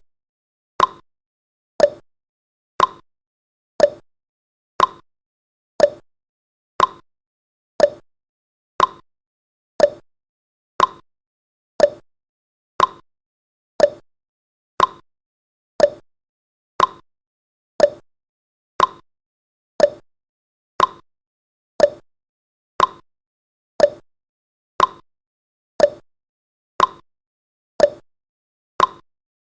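Countdown timer sound effect: a short tick once every second, each dying away quickly, in an even, steady rhythm.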